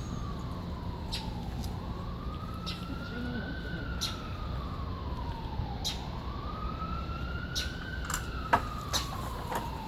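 Emergency-vehicle siren on a wail, its pitch slowly rising and falling, a full cycle about every four seconds, with a few sharp clicks and knocks over it.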